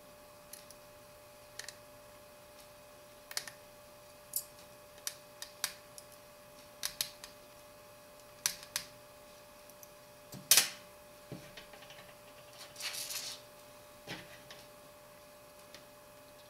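Scattered small clicks and taps of a precision screwdriver and tiny screws on a BlackBerry Bold 9700's housing as it is screwed back together, with a louder clack about ten and a half seconds in and a short rattle near thirteen seconds.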